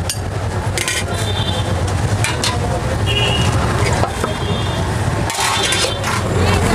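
Steel utensils clinking and scraping at a street dosa griddle: a metal spatula working on the griddle and a steel plate set down over the dosa as a lid, with several short clinks. Steady street traffic noise underneath.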